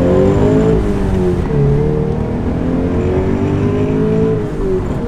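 Vortech-supercharged Scion FR-S's flat-four engine pulling under acceleration, heard from inside the cabin. The revs sag in the first second, climb steadily from about a second and a half in, and drop near the end.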